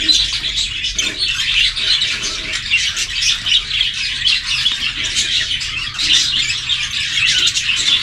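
A flock of small caged aviary birds chirping and chattering continuously, many overlapping high calls, over a faint steady low hum.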